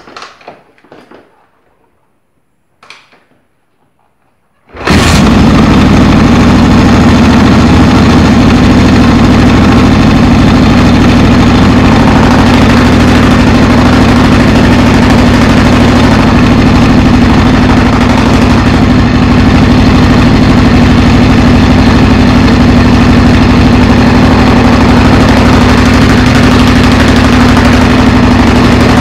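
Honda XR600R's air-cooled single-cylinder four-stroke engine, very loud and running steadily, cutting in abruptly about five seconds in.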